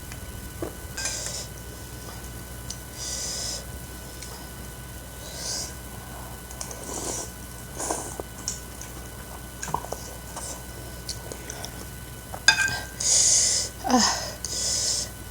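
Close-up eating sounds: a string of short slurps and sips, with small clicks of utensils against the bowl. The slurps grow loudest near the end.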